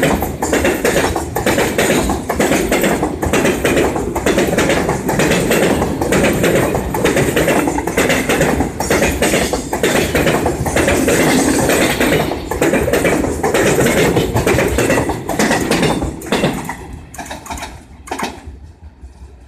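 Freight train's loaded container wagons rolling past close by: a loud, steady rumble of steel wheels on rails with many irregular clacks. About sixteen seconds in the noise falls away as the last wagon passes and the train moves off.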